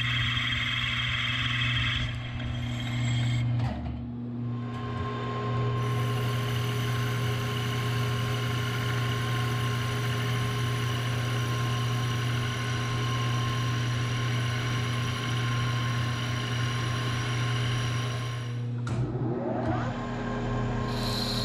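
Metal lathe running with its spindle turning steadily while a bronze sleeve is bored and turned, giving a steady motor hum and cutting noise. A rising whine comes near the end.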